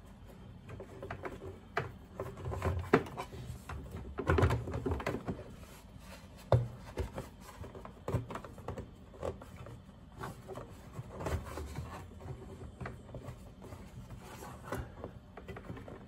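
Handling noise: a rubber plug with slits is worked around electrical cords and pressed into an opening in a plastic pump-basin lid, giving irregular clicks, knocks and rubbing sounds. The louder knocks come about three seconds in, around four and a half seconds and again near six and a half seconds.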